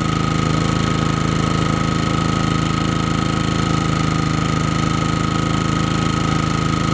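Portable generator's engine running at a steady speed, with a thin steady high whine over its drone.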